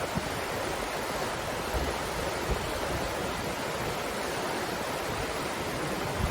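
Breeze blowing steadily with an even rushing hiss, and a couple of brief low rumbles about two seconds in.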